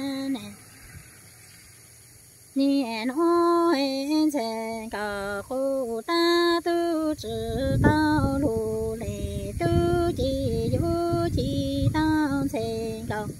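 A woman singing kwv txhiaj, Hmong sung poetry, solo and unaccompanied. She holds long notes with wavering, sliding ornaments and breaks off for about two seconds near the start before the next phrase. A low rumble joins about halfway through.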